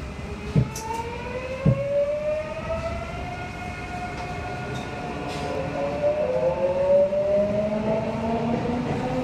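Subway train accelerating, heard from inside the car: the inverter and traction motors whine in several stacked tones that climb steadily in pitch over the car's running rumble. Two short knocks come about half a second and just under two seconds in.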